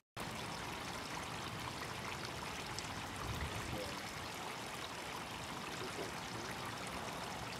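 Steady trickle and splash of water running over rocks into a small garden pond.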